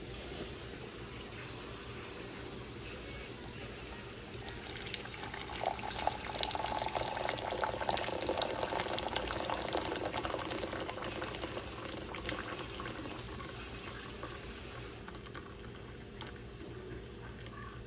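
Water sounds from an electric gooseneck kettle: a steady hiss, swelling about five seconds in into a louder, crackling watery sound for about ten seconds before easing off.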